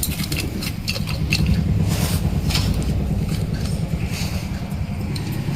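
Scattered metal clicks and scrapes of hand tools working on a scooter engine's cylinder head, over a steady low rumble.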